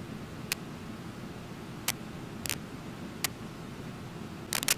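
Waterfall and rapids rushing steadily, broken by a few sharp clicks: single ones about a second apart, then a quick cluster near the end.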